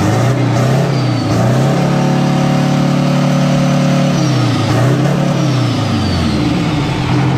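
Detroit Diesel two-stroke V engine running with no exhaust fitted. It is revved up and held for about two seconds, dropped back to idle, then blipped up twice more.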